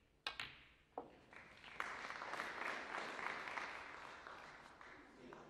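Snooker shot: sharp clicks as the cue strikes the cue ball and the balls collide, and a knock about a second in as the black is potted. Audience applause follows for about four seconds, dying away near the end.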